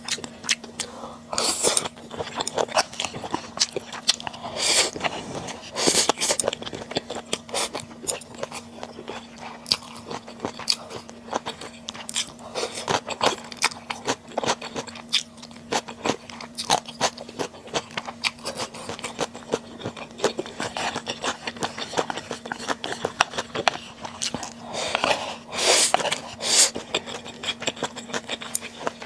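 Close-miked chewing and smacking of stir-fried webfoot octopus: a dense run of wet mouth clicks, with a few longer, louder mouth noises. A faint steady low hum lies underneath.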